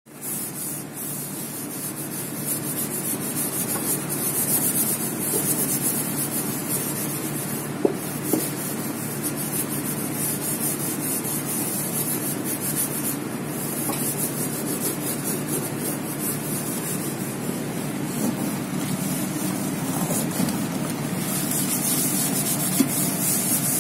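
Steady scrubbing and rubbing of a soapy stainless steel basin by a gloved hand, with a couple of light knocks along the way.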